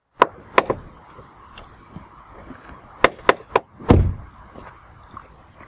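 Car door shutting with a heavy thud about four seconds in, after several sharp clicks and knocks.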